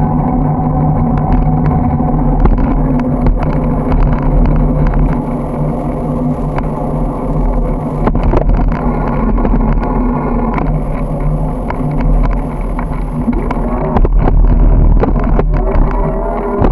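Riding noise from a bicycle-mounted camera: wind rumble on the microphone and the hum of motor traffic, with frequent small clicks and rattles. An engine's pitch rises briefly near the end.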